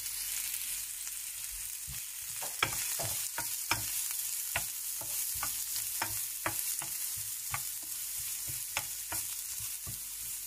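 Carrots stir-frying in a spoonful of oil in a pan: a steady sizzle, with a stirring utensil knocking and scraping against the pan about twice a second at an uneven pace.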